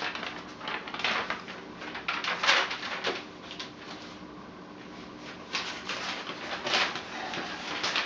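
Old, stiff sheets of paper rustling and crackling as they are lifted, shuffled and laid down, in several separate bursts.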